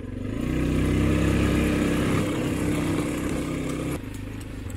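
ATV engine running under light throttle at low speed, its sound swelling about a second in, holding steady, then dropping to a quieter running near the end.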